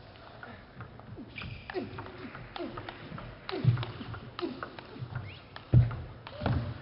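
Table tennis rally: a quick run of sharp clicks of the celluloid-plastic ball striking bats and table, with short falling squeaks and a couple of heavier thumps from the players' footwork.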